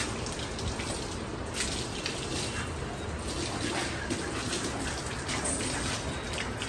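Water from a running garden hose spraying onto a horse and splashing on the wet stall floor: a steady splashing with no breaks.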